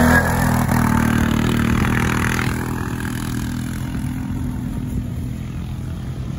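Quad (ATV) engine running hard as it passes close and drives away, fading steadily over several seconds. There is rough tyre and clatter noise in the first couple of seconds.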